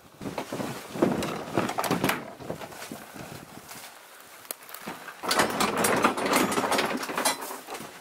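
Irregular footsteps on snowy field stubble and the knocking and rustling of plastic full-body goose decoys being carried and handled, busiest about five seconds in.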